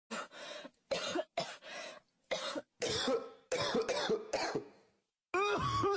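A person coughing in a string of about seven short, rough coughs, some with a voiced edge. After a brief pause near the end, a pitched vocal sound begins.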